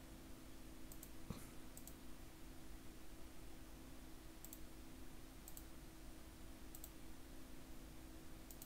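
A few faint, sharp computer mouse clicks, each a quick press-and-release pair, spaced a second or more apart, with one dull knock about a second in. A steady low hum of room tone lies under them.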